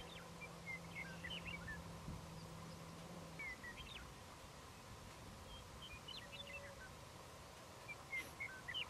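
Faint songbird calls: four short phrases of high chirps and slurred notes, a few seconds apart. Under them run a faint steady high hum and, for the first three seconds or so, a low steady drone.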